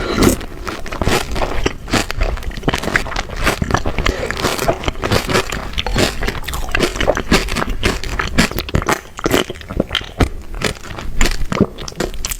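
Chocolate being bitten and chewed, a steady run of crisp crunches and crackles.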